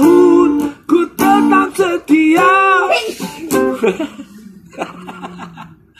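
Man singing the last line of a Malay song over strummed acoustic guitar, holding long wavering notes. About four seconds in the singing stops and the guitar trails off in a few quieter strums.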